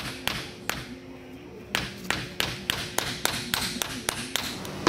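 Light hammer taps on a block of pine held against a CV-joint tone ring, driving the ring off the stock axle. Two taps, then a quick, even run of taps at about five a second.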